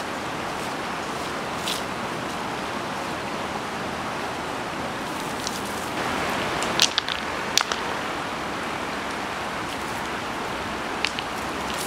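Steady rush of a shallow river running over stones, with a few sharp clicks scattered through it, the loudest two close together a little past the middle.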